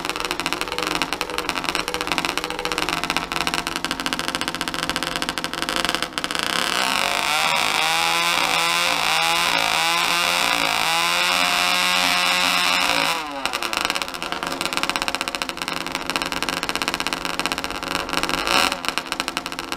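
Two-stroke engine fitted with a vuvuzela on its exhaust, running unevenly at low revs, then revved up about six and a half seconds in and held high for about six seconds before dropping back to uneven low running.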